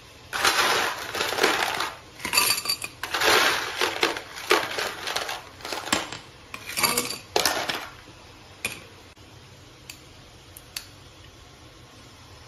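Ice cubes rattling and scraping in a plastic ice box and clinking into a glass, a run of loud rattles and knocks for the first several seconds, then a few single light clicks.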